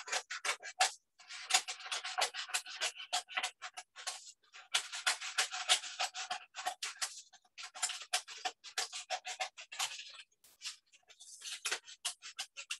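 Scissors snipping through a paper plate to cut out its centre: runs of quick, crisp snips broken by brief pauses about every three seconds.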